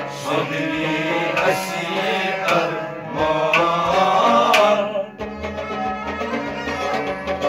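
Live folk music: a harmonium holds sustained chords while a clay pot drum is struck in a steady rhythm, and a man's voice sings a wavering phrase in the middle.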